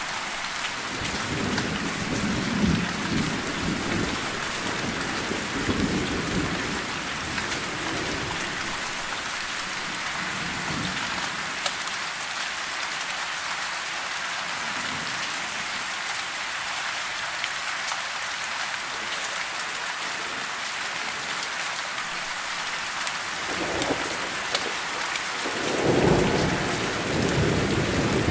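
Steady rain falling on tree leaves, with low rolls of thunder in the first several seconds. The thunder rolls again near the end, louder.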